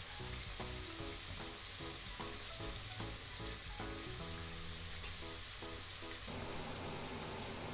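Sliced carrots and onion sizzling steadily in hot oil in a pot.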